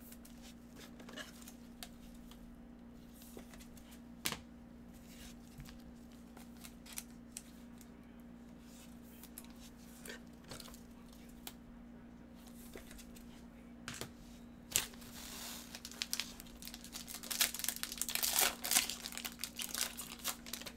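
Foil trading-card packs being handled and torn open: scattered ticks and rustles of cards and wrapper, then a long burst of crinkling and tearing foil near the end. A steady low hum lies underneath.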